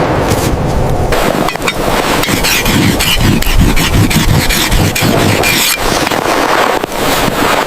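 Strong blizzard wind blowing loud and gusty, with short irregular knocks and scrapes mixed in.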